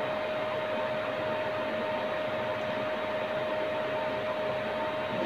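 Steady whirring hiss of a running fan, with a constant mid-pitched hum tone through it.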